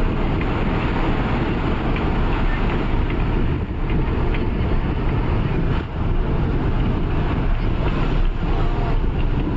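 Loud, steady rumble of a moving vehicle, with faint knocks now and then.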